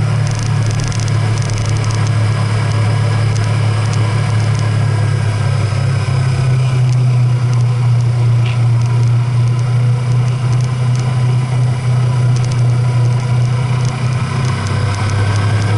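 Motor vehicle engine running steadily under way, a constant low drone over road noise, its pitch shifting slightly about six seconds in and again near the end.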